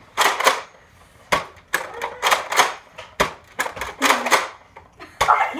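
Foam-dart blasters being worked: an irregular run of about a dozen sharp plastic clacks and short pops.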